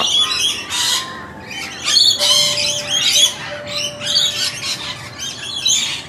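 Mixed flock of Australian backyard birds (rainbow lorikeets, noisy miners and magpies) calling while they feed: a dense, unbroken run of short, harsh squawks and chirps.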